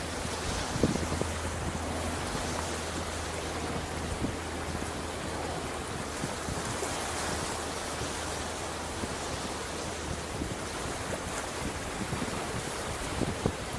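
Ocean surf washing on the beach: a steady, even rush of water with no single loud crash, and a low hum underneath that fades out about ten seconds in.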